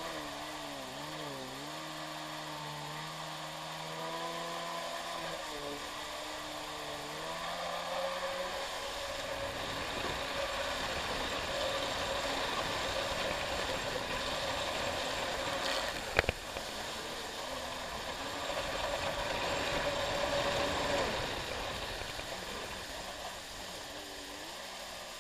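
Kawasaki X2 stand-up jet ski's two-stroke engine running under way, its pitch wavering and then rising over the first several seconds before a steady rush of water spray covers it. A single sharp knock stands out about sixteen seconds in.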